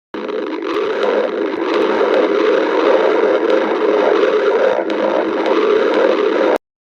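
A person's stomach growling: one loud, continuous rumble with a few faint clicks, cut off suddenly near the end.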